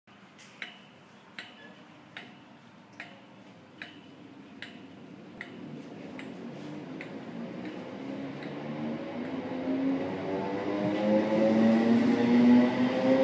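Electric multiple-unit passenger train pulling away from a platform. From about halfway through, its traction motors' whine rises steadily in pitch and grows louder. Over the first half, a run of evenly spaced sharp ticks, a little more than one a second, fades away.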